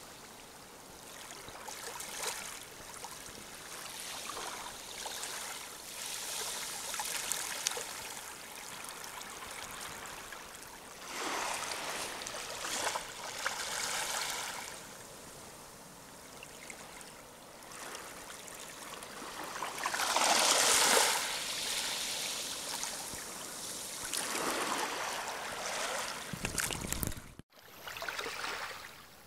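Small waves lapping and washing up on a sand-and-pebble beach, a hiss that swells and falls back every few seconds, the strongest wash about two-thirds of the way through. Near the end there is a short low rumble, then the sound cuts out for a moment.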